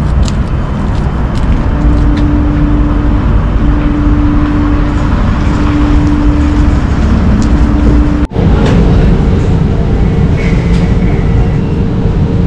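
A loud, steady low rumble with a faint hum that comes and goes. After a sudden cut about eight seconds in, a commercial kitchen extractor hood's fan gives a steady hum.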